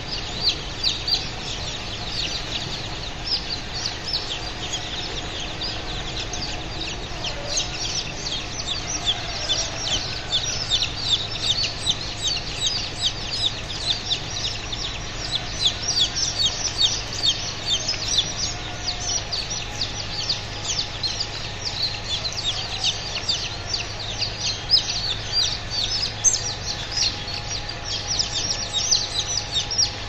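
Dozens of day-old chicks peeping in crates, a dense, continuous chorus of short high-pitched cheeps overlapping several times a second.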